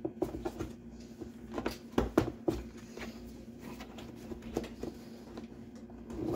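Plastic parts of a Mainstays three-tier plastic cart clicking and knocking as the top piece is pressed and snapped into place by hand. The taps come irregularly, with the loudest cluster about two seconds in.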